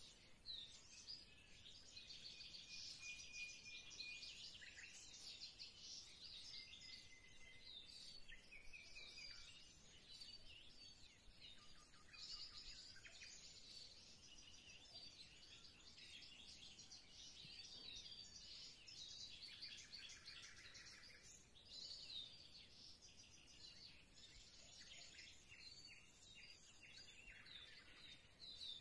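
Faint birdsong: small birds chirping and trilling all the way through, with a few short whistled notes.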